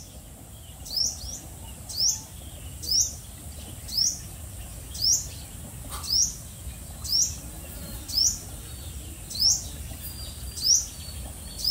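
A bird calling a short, rising chirp over and over, about once a second with very even spacing.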